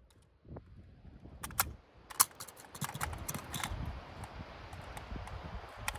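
A series of sharp clicks and knocks, several in quick succession between about one and a half and four seconds in, the loudest a little after two seconds, with one more near the end.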